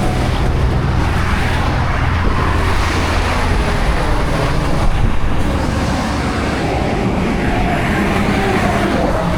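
Truck engine running steadily, with a low hum that eases back about three and a half seconds in, under a continuous rushing noise.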